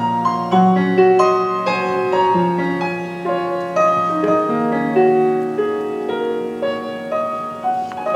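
Slow, melodic piano music, with a new note or chord about every half second to a second.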